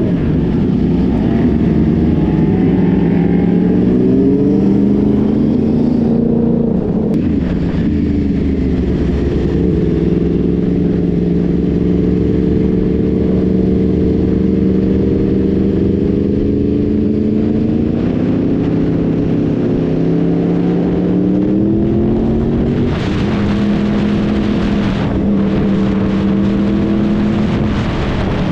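Sport motorcycle engine heard from the rider's seat, accelerating and cruising: its pitch climbs and drops back at two gear changes, about a quarter of the way in and again about three quarters in, with steady stretches between. A hissing rush of air grows louder over the last five seconds.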